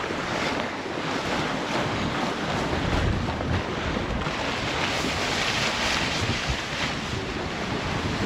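Wind buffeting the microphone over a steady rush of sea water alongside a sailboat under way in open ocean.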